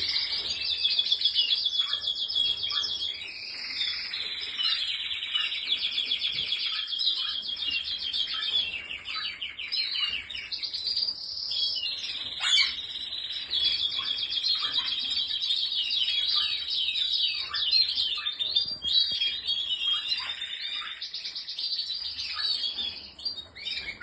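Domestic canaries singing: long, fast trills of rapidly repeated high notes rolling on almost without a break.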